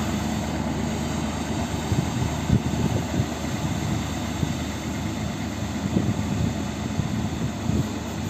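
Tractor engine running steadily while it drives a dust-cleaning sweeper over a dirt road, with a low rumble and a few short knocks.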